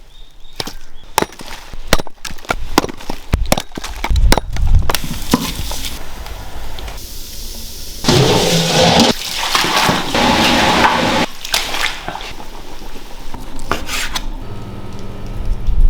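Kitchen work sounds: repeated knocks and clanks of pots and utensils, with a stretch of rushing, pouring water in the middle, then a low steady hum near the end.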